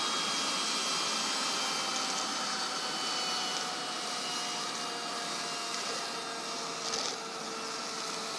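Bosch BKS4043 rechargeable handheld vacuum running steadily while sucking up drilling dust. Its motor whine drifts slightly lower in pitch, with one brief knock near the end.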